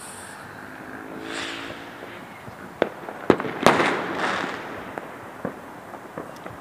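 Fireworks going off across the city: a cluster of sharp bangs about three seconds in, each followed by a spell of crackle, then a few scattered smaller pops toward the end.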